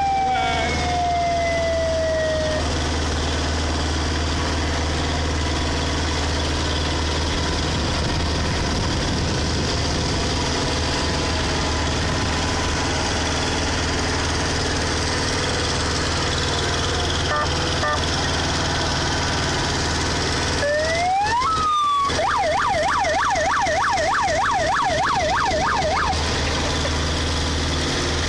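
The tractor engine of a beach train running steadily as the carriages roll over sand. A siren's falling tone fades out in the first couple of seconds, and about 21 s in a siren rises and then warbles rapidly up and down for about four seconds.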